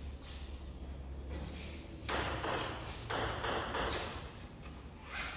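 Table tennis rally: the celluloid ball clicking off the table and the rubber paddles, starting about two seconds in, with hits coming roughly twice a second.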